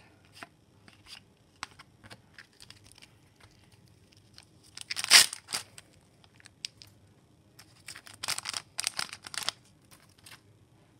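A foil trading-card pack wrapper being torn open and crinkled. A loud rip comes about five seconds in and a second run of crinkling comes between about eight and nine and a half seconds, with light clicks of cards being handled in between.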